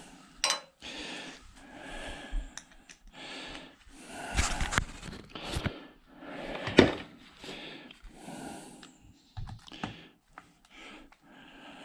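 Hand work on an ice maker being scrapped: a run of short metal and plastic scrapes and clicks, with sharp knocks about four and a half and seven seconds in.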